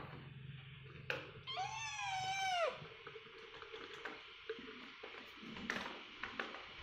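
A kitten meows once, a high call of about a second that rises and then falls, shortly after a sharp click; then soft, scattered clicks as the kittens move about in the wire cage.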